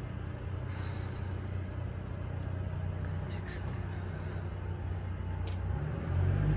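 A steady low rumble, like distant engine noise, that swells briefly near the end, with a few faint clicks over it.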